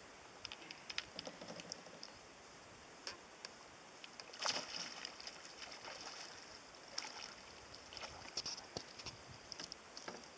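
Small water splashes and drips around a kayak, scattered and irregular, with a bigger splash about four and a half seconds in.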